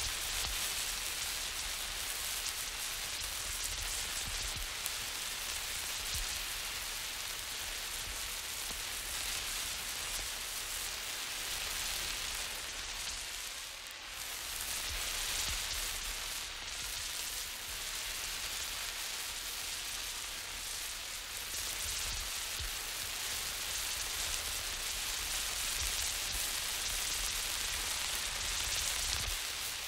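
Emergency flare burning with a steady sputtering hiss, swelling and fading as it is swung from side to side, with a brief dip about midway.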